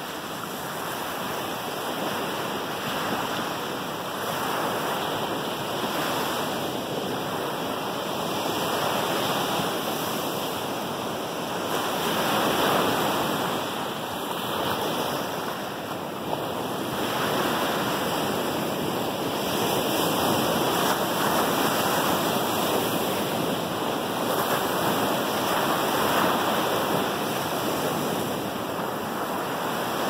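Ocean surf breaking and washing up a sandy beach: a steady hiss that swells and eases every few seconds as each small wave comes in.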